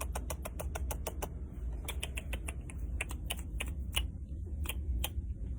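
A run of light, sharp clicks, quick at first and then sparser after about a second, over a low steady hum.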